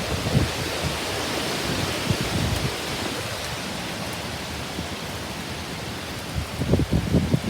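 Heavy rain pouring down in a steady hiss, with strong wind gusts buffeting the microphone in low rumbles toward the end.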